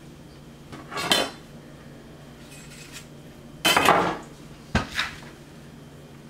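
Handling noise at a wooden cutting board as kitchen string is tied around a stuffed whole red snapper: a brief noisy swish about a second in, a longer one a little past the middle, then two sharp clicks in quick succession.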